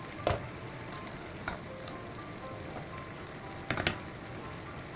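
Stew simmering in a pan on a gas stove, a steady sizzling hiss broken by a few sharp knocks. The loudest is a double knock near the end. Faint background music runs under it.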